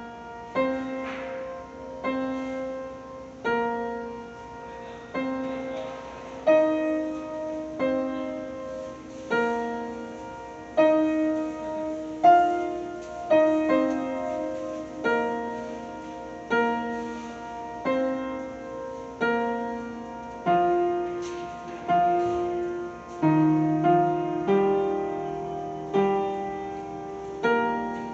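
Street piano playing the melody of the Tenrikyo Church Headquarters 2 p.m. siren, transcribed by ear. Slow chords are struck about every one and a half seconds, each left to ring and fade, with lower bass notes entering near the end.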